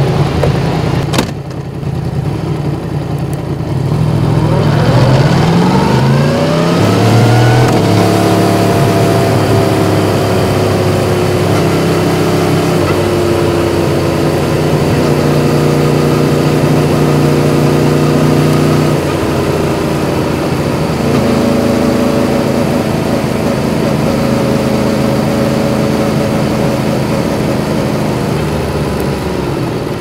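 Yamaha MT-10's crossplane inline-four running low, with a sharp click about a second in, then pulling away with a rising engine note that settles into a steady cruise. The note changes about two-thirds of the way through and falls near the end as the bike eases off, over a rushing hiss.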